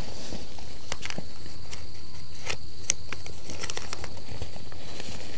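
Handling of a backpack and its contents: scattered light clicks and rustles over a steady low background hum.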